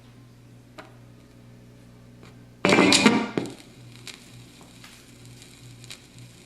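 Califone 1430A portable record player humming steadily between tracks, with a light handling click. About two-thirds of the way through, a short loud burst of music plays for under a second and cuts back to the hum.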